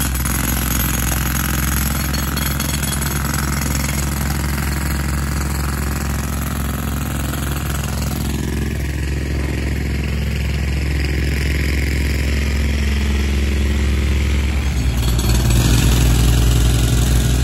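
A motor running steadily at idle. About fifteen seconds in it gives way to a louder, deeper engine hum, the Case CX36B mini excavator's diesel idling.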